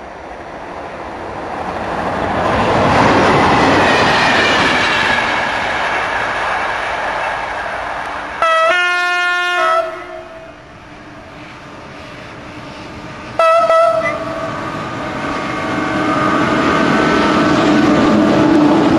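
Freight train on an electrified line, hauled by an SNCF electric locomotive: a rushing rail noise swells and fades in the first seconds. The locomotive's horn then sounds a long blast of about a second and a half, and a short blast a few seconds later, a driver's friendly greeting. The wagons' rumble and wheel clatter then build up loud near the end as the train passes.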